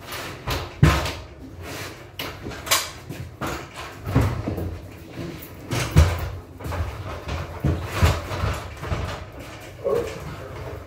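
Irregular knocks and low thumps of workers moving on an aluminium stepladder and handling an LED strip light, the loudest about a second in and around six seconds.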